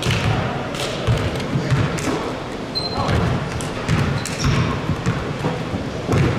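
Basketball bouncing on a gym floor during play, with repeated thuds, a short high squeak about three seconds in, and players' voices in the background.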